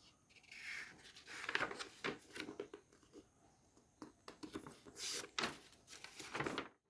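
Handling noise: irregular rustling, scraping and light knocks, a few per second, that cuts off suddenly near the end.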